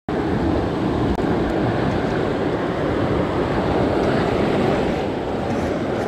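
Steady rush of a shallow mountain stream flowing over rocks.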